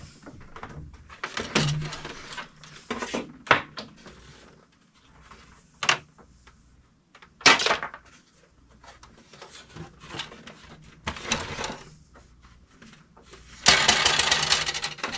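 Handling noises from an HP LaserJet 1022 laser printer being fitted and pushed back on its wall shelf: scattered knocks and clacks of its plastic case and covers, then near the end a longer scrape as the printer is slid back.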